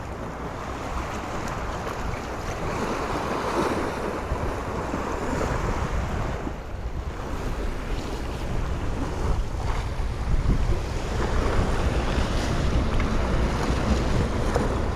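Sea waves washing, with wind buffeting the microphone in a low rumble. The sound swells gradually louder over the first few seconds.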